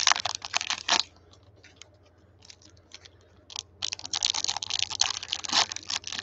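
Crinkling of a foil trading-card pack wrapper and rustling of cards handled in gloved hands: a burst of crisp clicks and rustles, a near-quiet stretch of about three seconds, then dense crinkling again.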